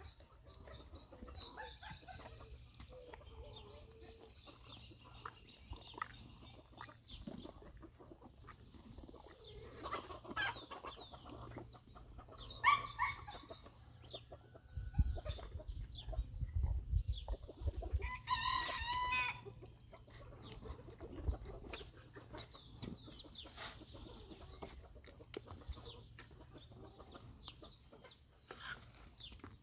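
Farmyard chickens clucking now and then, with a longer rooster-like crow about eighteen seconds in. Scattered faint clicks, and a low rumble for a few seconds just before the crow.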